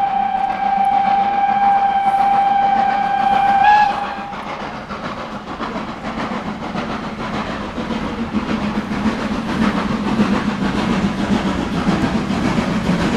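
Ty42-107 steam locomotive's whistle blowing one long steady note that cuts off about four seconds in. The locomotive and its train then approach, their rumble and wheel clatter growing louder as they draw near.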